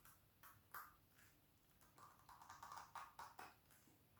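Faint handling noise: a rubber gas hose being worked and forced onto the end of a fitting, with scattered light clicks and taps, then irregular faint rubbing from about two seconds in.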